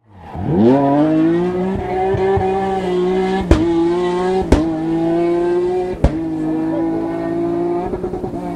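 Race car engine revving hard from low to high revs in the first second, then held near the top of its range. Three sharp cracks land in the middle, each with a brief dip in pitch.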